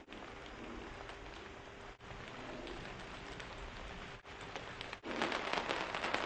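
Rain falling steadily, turning louder and crackling with dense drops about five seconds in, with brief dropouts in between.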